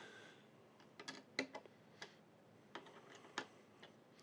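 Faint, scattered light clicks and taps, about ten, from small metal CPU-cooler mounting hardware being handled and fitted onto the motherboard.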